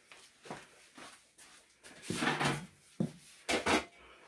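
A metal baking sheet being pulled out of a kitchen cabinet: a scraping clatter about two seconds in, then a few sharp knocks.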